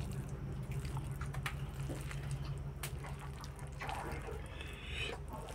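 Fingers squishing and mixing cooked rice with curry in a metal plate: soft wet squelches and small scattered clicks over a steady low hum.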